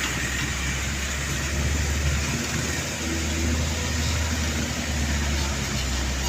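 Motor vehicle engine running with a steady low hum, over a haze of road noise.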